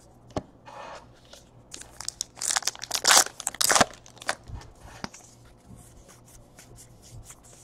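Trading cards rustling and sliding against each other in the hands as they are flipped through one by one, with scattered small clicks and a louder crinkling stretch about two and a half to four seconds in.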